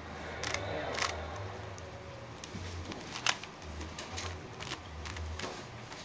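Plastic Rubik's cube being turned quickly by hand: irregular clicks and rattles of the layers snapping round, with one sharp click a little over three seconds in.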